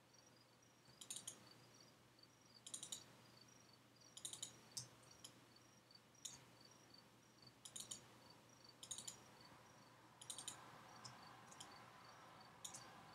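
Faint computer mouse clicks in quick pairs and small clusters every second or two, as edges are selected one after another. A faint, evenly pulsing high chirp, several times a second, runs behind them.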